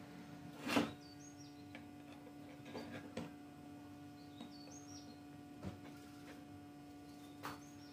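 Metal bicycle drive parts knocking and clicking as they are handled and set down on a steel workbench, loudest as a sharp knock about a second in, with a few lighter clicks after. A bird chirps a short repeated phrase in the background over a steady low hum.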